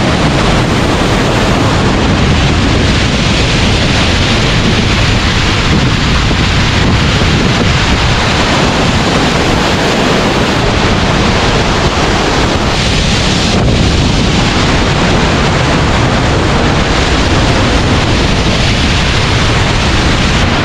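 Loud, steady rush of a waterfall.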